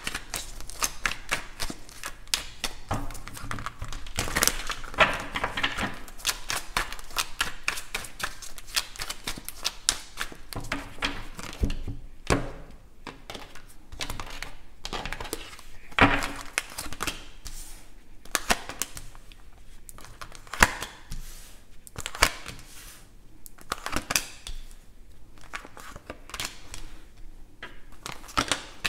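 A deck of tarot cards being shuffled by hand, a dense run of quick clicks and rustles through the first dozen seconds. Then the cards are dealt and laid down on a tabletop as separate taps and slaps.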